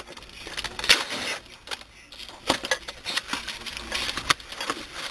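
Cardboard box and plastic wrapping being opened by hand: an irregular run of crinkling, crackling rustles and sharp clicks.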